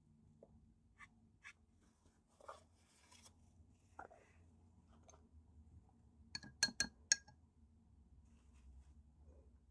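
Soft taps and rustles of painting supplies being handled on a desk, then a quick run of four sharp, ringing clinks about two-thirds of the way through, like a hard object knocked against glass or ceramic.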